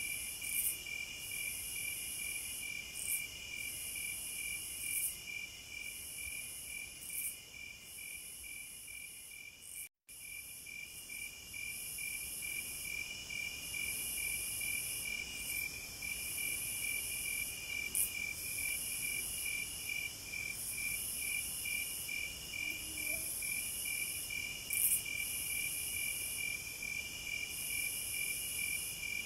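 Insects chirping steadily: a fast, even pulsing trill with a continuous higher buzz over it, cutting out briefly about ten seconds in.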